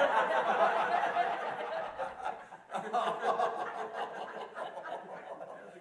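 A small group of adults laughing together: a loud burst, a brief lull about two and a half seconds in, then a second wave of chuckling that tapers off.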